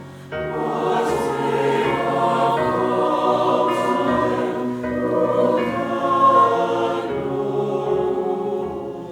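A choir singing sustained, many-voiced harmony, starting a moment in and fading slightly near the end.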